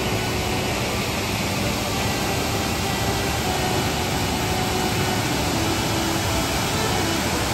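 Steady rushing of a wide waterfall and the rapids below it, a constant even wash of falling water.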